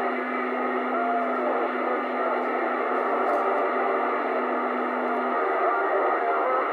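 CB radio receiver tuned to channel 28 and picking up long-distance skip signals: a narrow, hissy band of noise with faint, garbled, overlapping transmissions. A steady low tone runs through it and stops about five seconds in.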